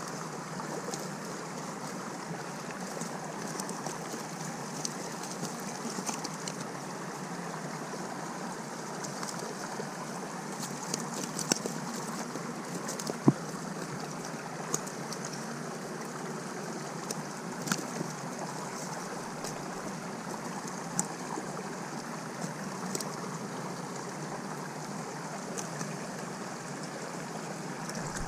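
Steady rush of flowing river water, with scattered short clicks and rustles from a nylon cast net being handled as fish are worked free of the mesh.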